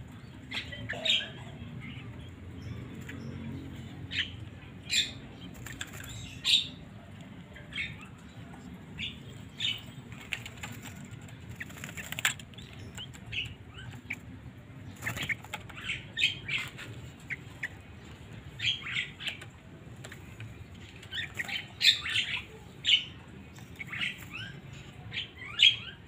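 Fledgling yellow-vented bulbuls in a bamboo cage fluttering their wings in quick, irregular bursts with short, sharp calls while being hand-fed, the begging of young birds at feeding.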